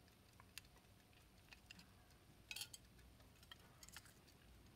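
Faint, irregular small metallic clicks and taps from a silver pocket watch case being handled and opened in the hands, with a louder cluster of clicks about two and a half seconds in.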